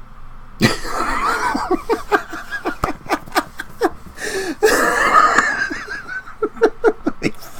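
A man laughing hard, wheezing, breathless bursts of laughter that break out about half a second in and keep coming in quick pulses.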